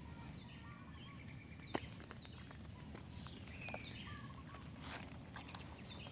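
Birds chirping over a steady high-pitched insect buzz, with a few sharp clicks and footsteps on a gravelly mudflat.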